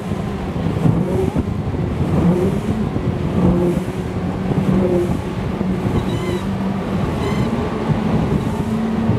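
Johnson two-stroke outboard motor running at speed, its pitch holding mostly steady, over the rush of water and wind past the moving hull.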